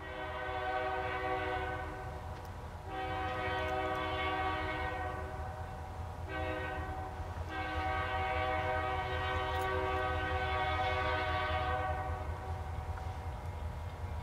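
Air horn of an approaching EMD diesel locomotive sounding the grade-crossing signal: two long blasts, a short one, then a long one, over the low rumble of the diesel engine.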